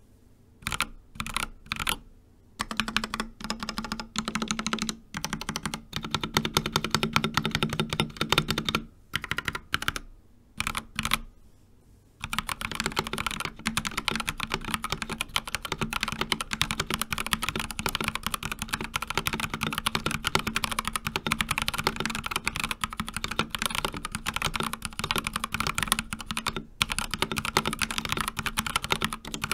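Typing on an Akko 3068B Plus mechanical keyboard with Akko Jelly Black linear switches. Scattered keystrokes and short bursts with brief pauses during the first twelve seconds or so, then continuous fast typing.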